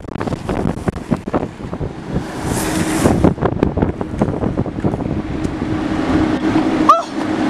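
Longboard wheels rumbling and clattering over rough asphalt at speed, with wind noise on the microphone. A steady low hum joins about three seconds in, and a sharp knock comes near the end.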